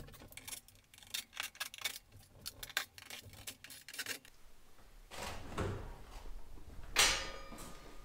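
Metal trim ring being worked off a refrigerator: a run of light clicks and rattles, then scraping, and about seven seconds in a sharp metallic scrape that leaves a brief ring.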